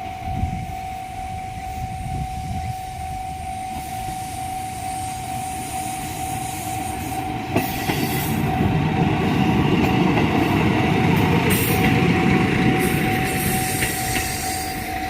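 A level-crossing alarm rings steadily throughout while a KiHa 54 diesel railcar approaches and runs across the crossing. The railcar's engine and wheel rumble grow loud from about eight seconds in and peak a few seconds later.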